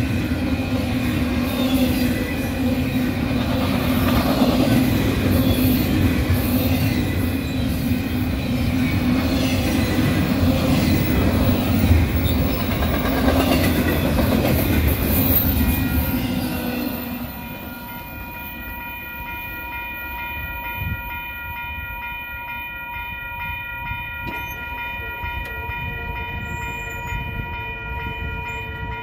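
Union Pacific train passing at speed: a loud, steady rush and rumble of wheels on rail. It drops away about two-thirds of the way through, leaving a quieter, steady ringing tone.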